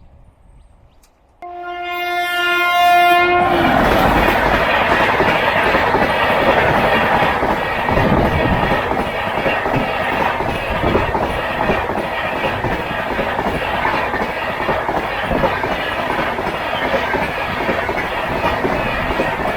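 Local train sounding one steady horn blast for about two seconds, then thundering past at full speed: a loud rush of wheels clattering over the rail joints.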